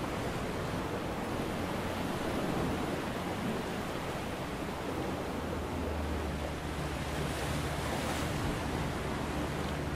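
Steady rushing outdoor ambience, a wind-and-surf-like noise. A low steady hum joins it about six seconds in.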